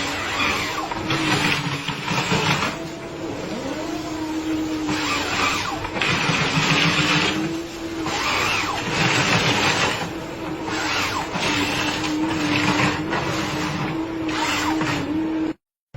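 A chainsaw running and cutting, its engine note steady with a slight waver and noisy surges every second or two as it bites into the wood; it cuts off suddenly near the end.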